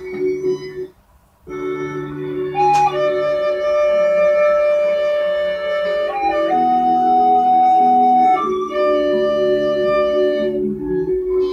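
Overdubbed instrumental music of long held notes layered at several pitches, with a higher line moving in steps between sustained tones. It breaks off for a moment about a second in, then resumes.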